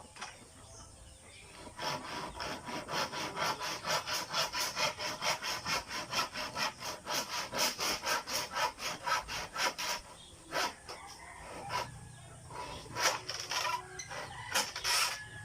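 Hand saw cutting wood in quick, even back-and-forth strokes for about eight seconds, then stopping, followed by a few separate knocks.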